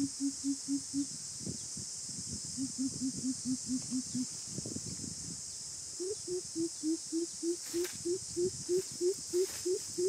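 Coucal calling: runs of deep, evenly spaced hoots, about four a second, the run from about six seconds in pitched a little higher. A steady high insect drone runs underneath.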